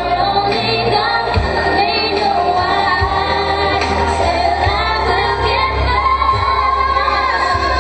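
Music with a woman singing over a heavy, steady bass.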